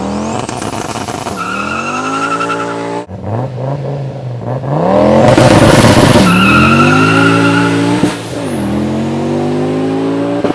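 Audi inline five-cylinder engine accelerating hard through the gears. The revs climb, drop sharply at a shift about three seconds in, climb louder, and drop again at a second shift about eight seconds in. A thin high whine rises with the revs.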